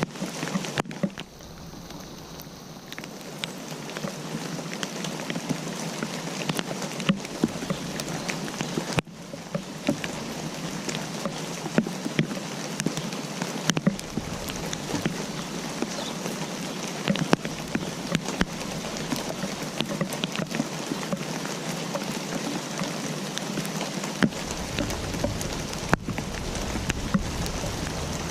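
Steady rain falling, a dense patter with many separate drops ticking sharply through it. The sound thins out briefly about a second in and again around nine seconds.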